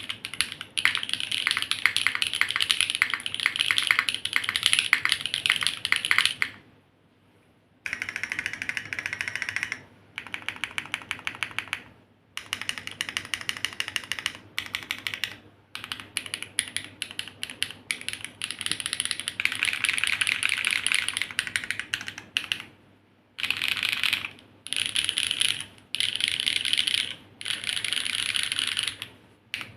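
Typing on a gasket-mounted Neo65 Cu custom mechanical keyboard with HMX Yogurt S switches and GMK keycaps: fast runs of key strokes in bursts of a few seconds, with short pauses between them and a longer pause about seven seconds in.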